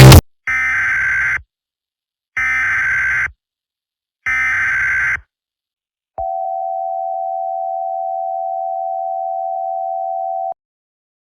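Loud electronic music cuts off at the very start. Three short bursts of mock EAS SAME header data tones follow, each about a second long and evenly spaced. Then a steady single-pitched alert attention tone holds for about four seconds and stops abruptly.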